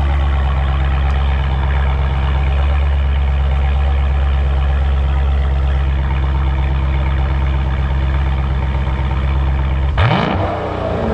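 Dodge Challenger SRT's Hemi V8 idling steadily through its exhaust, which has just had the mid-muffler deleted. About ten seconds in, the throttle is blipped once and the engine revs up sharply.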